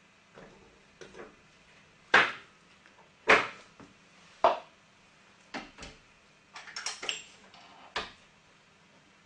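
Sharp metal knocks and clinks from the Fritsch Pulverisette 19 cutting mill's parts being handled and set in place by hand, with the motor off. There are about eight separate knocks, the loudest two about two and three seconds in, and a quick run of lighter clicks about seven seconds in.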